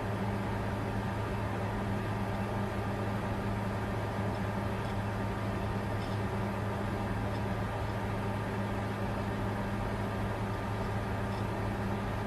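Bitcoin mining computer running steadily under load, its cooling fans making an even whir over a constant low hum.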